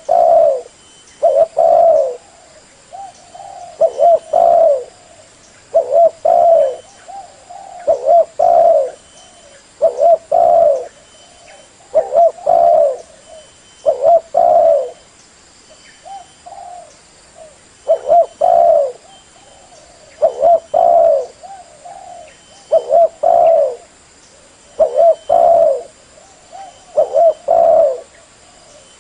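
Spotted dove cooing: a phrase of a few short, low coos repeated about every two seconds, the call used as a lure to draw in wild doves.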